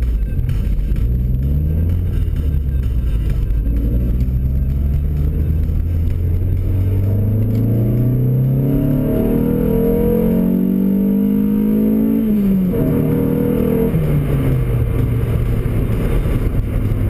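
Opel Astra F GSi 16v's C20XE 2.0-litre 16-valve four-cylinder engine pulling hard in second gear at full throttle, heard from inside the cabin, its pitch rising steadily for about ten seconds. About twelve seconds in the revs fall sharply, hold briefly, then wind down to a steady lower drone.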